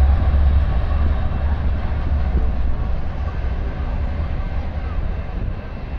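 Diesel freight train of a BNSF locomotive and double-stack container cars passing, a deep steady rumble that slowly fades as the train moves away.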